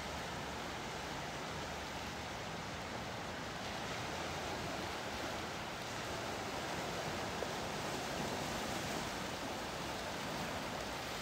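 Small waves breaking and washing in over a flat rock shelf at the shoreline: a steady rush of surf.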